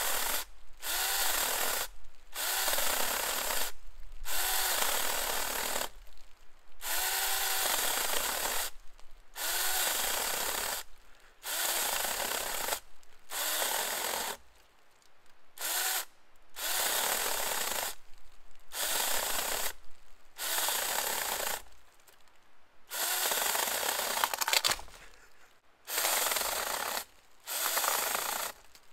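Small battery-powered chainsaw cutting through a 3.5 to 4 inch hardwood log in short bursts. The trigger is pulled and released about every two seconds, with a brief whine as the motor spins up at each start.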